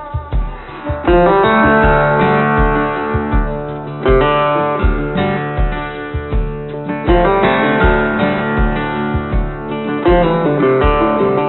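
Background music: a guitar-led track with strummed acoustic guitar over a steady beat.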